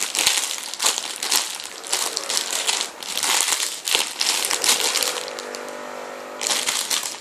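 Crinkling and rustling as squishy toys are handled and squeezed close to the microphone, in irregular bursts, with a faint steady tone underneath for a second or so near the end.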